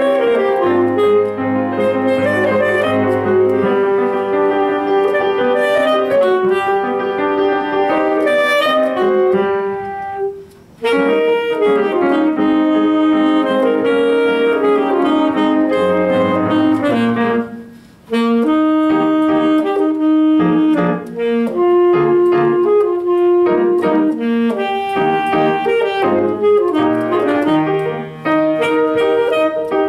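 Alto saxophone playing a solo melody of held and moving notes, with piano accompaniment underneath. The music breaks off briefly twice, about ten and eighteen seconds in.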